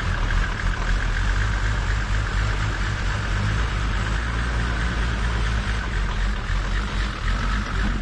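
Range Rover P38 engine idling steadily, just started after a long time standing unused.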